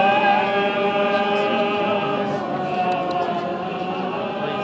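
Orthodox liturgical chanting, sung in long held notes that slide only slowly in pitch.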